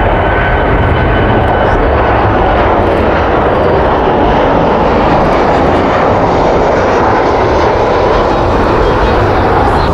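Loud jet engine roar of an airliner flying low on its landing approach, swelling and then easing off through the middle.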